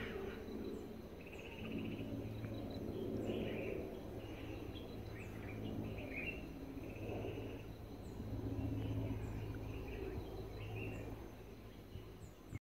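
Rainforest ambience: birds calling with scattered chirps and short high repeated calls, over a low steady hum.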